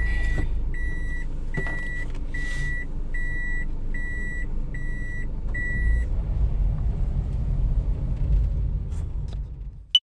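Daihatsu Hijet Cargo kei van's in-cab reverse warning beeper, a short high beep repeating about every 0.7 s over the idling engine, stopping about six seconds in. The engine and road rumble then grows as the van drives off, with a sharp click near the end.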